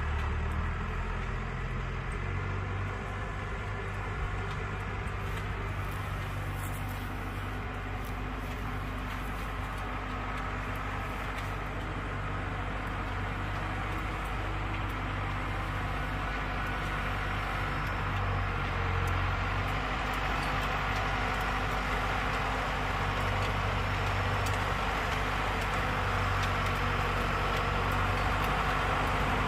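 Tractor engine running steadily under load as it drives a rear-mounted rotary tiller through ploughed soil. It grows louder in the second half as the tractor comes closer.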